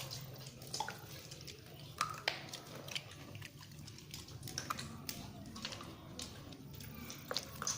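People eating longans: scattered small clicks and wet chewing and biting sounds, irregular and close.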